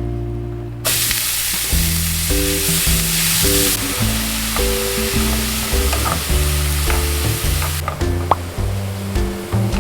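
Food frying in a hot pan: a loud sizzle starts suddenly about a second in and drops away near the end, over background music.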